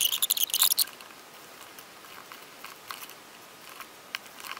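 Hands handling small parts at a workbench: a burst of rustling and clicking for about the first second, then sparse faint ticks and taps as a small circuit board is laid on the mat and a soldering iron is lifted from its stand.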